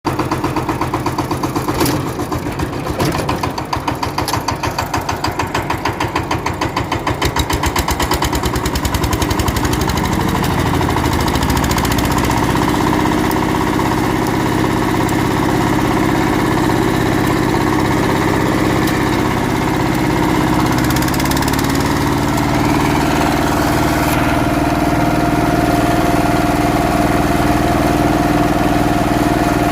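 Daedong 10-horsepower power tiller's single-cylinder diesel engine being started by hand: slow, uneven beats quicken over the first several seconds as it fires, then it settles into steady running. A steady higher tone joins the engine sound about three quarters of the way through.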